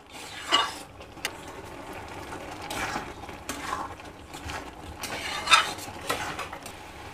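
A spatula stirring thick carrot halwa around a metal kadai, with uneven scrapes of the utensil against the pan, a sharp click about a second in and a louder scrape near the end. The mixture is cooking down on high flame after the sugar has gone in, and a faint sizzle runs under the stirring.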